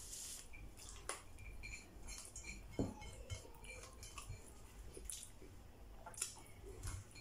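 Faint eating sounds: a person chewing a mouthful, with a few soft clicks of fingers and food against a plate.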